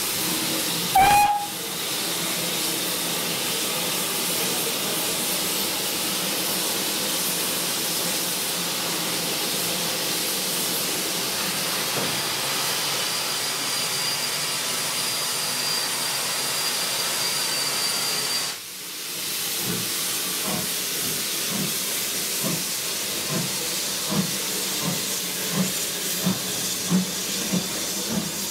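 Steam locomotive 78018 standing in steam with a steady hiss, and one short, loud toot on its whistle about a second in. After a break about two-thirds through, a second steam locomotive sets off with slow, regular chuffs over steady hissing from its cylinders.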